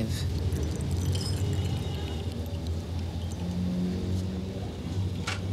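Steady low rumble of road traffic, with one engine note holding for about a second midway and a sharp click near the end.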